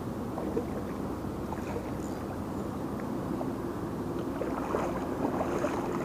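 Small channel catfish splashing at the surface in shallow water as it is reeled toward shore, over a steady rush of wind and moving river water.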